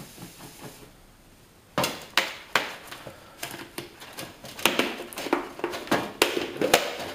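A lidded plastic tub of dry powder being shaken to mix it: a run of quick rattling knocks that starts about two seconds in, coming two or three a second.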